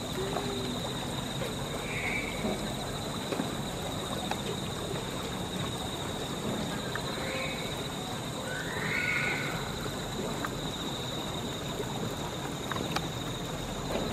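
Outdoor forest ambience: a constant high-pitched insect drone over a steady hiss, with three short high chirps spread through it.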